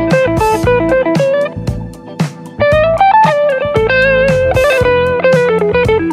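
PRS McCarty 594 double-cut electric guitar playing a clean single-note lead line over a jazz-blues backing track with drums and bass. About halfway through the line settles on a long held note with vibrato.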